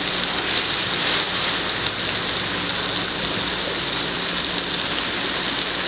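Masala-marinated fish pieces shallow-frying in a pan of oil: a steady, even sizzle.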